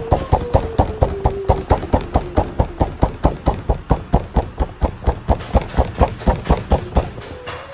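A hand rapidly patting and pressing a long strip of bread dough on a worktable: a steady run of quick thuds, about five a second.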